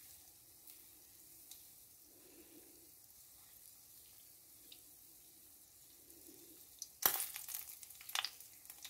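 Gulab jamun dough pieces deep-frying in canola oil: a faint, steady sizzle. About seven seconds in it turns suddenly louder, with crackling and sharp clicks as a mesh strainer moves the pieces around in the oil.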